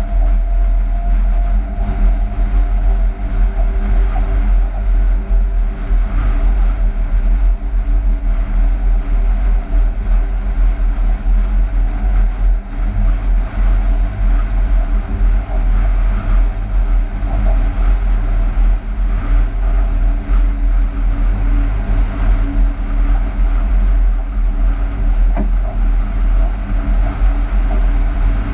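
Cab noise of a Class 186 TRAXX electric locomotive running light engine: a steady deep rumble with a constant machine hum.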